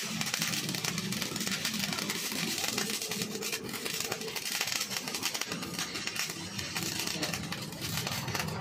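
Electric arc welding on a broken steel truck axle shaft at its hub flange, the arc crackling and sizzling steadily without a break.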